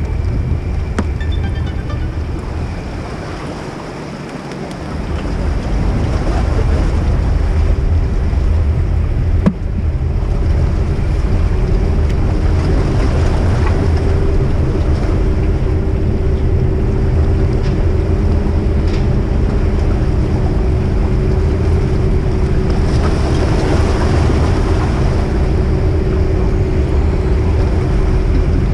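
Car ferry's engines running as it manoeuvres in to dock: a heavy low rumble with a steady hum over it, growing louder about five seconds in and then holding steady.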